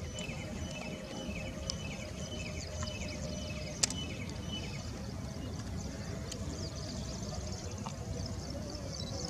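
Small birds chirping rapidly and continuously over a low steady rumble and a faint steady hum of distant jet engines. A single sharp click about four seconds in.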